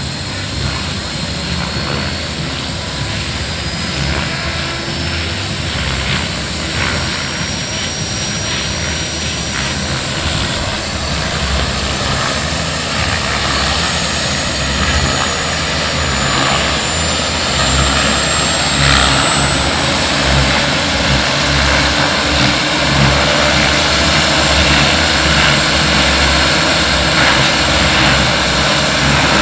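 Model turbine engine of a giant-scale RC Bell AH-1 Cobra helicopter running on the ground. Its high whine climbs slowly in pitch and grows gradually louder as the engine spools up.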